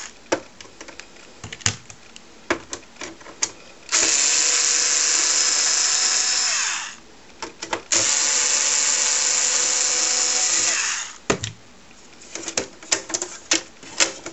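Bosch cordless screwdriver backing out the cover screws of a TRS-80 expansion interface: two steady runs of about three seconds each, starting about four and eight seconds in, each winding down in pitch as it stops. Scattered clicks and knocks of screws and the cover being handled come between and after the runs.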